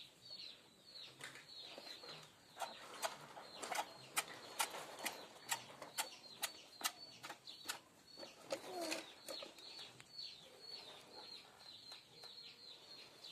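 A string of sharp knocks, a couple a second, densest in the first half, over repeated short, high, falling bird chirps.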